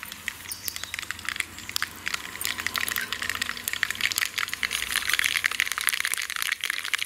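Mustard seeds spluttering in hot oil in a kadai: a rapid crackle of small pops that grows denser and louder after about two seconds. The popping is the sign the oil is hot enough for tempering.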